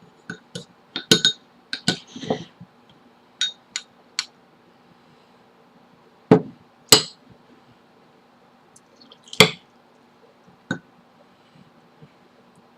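Eating utensils clinking against dishes: a scatter of sharp clicks and clinks, several in quick succession at first, then a few louder single clinks spread out.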